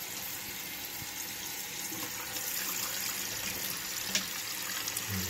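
Toilet tank fill valve running: water hisses and splashes steadily into the open tank and pours from the refill tube into the overflow pipe, the old flapper having been taken out. A small click about four seconds in.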